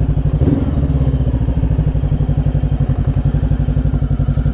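Macbor motorcycle engine running steadily under way on a dirt track, its firing pulses even and unchanging in pitch, with a brief knock about half a second in.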